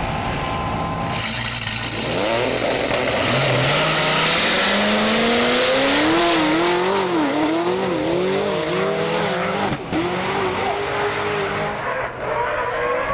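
Two high-horsepower race cars launching side by side and accelerating hard, with a loud rushing hiss at the launch. The engine note climbs steadily, then rises and drops several times as they shift up through the gears.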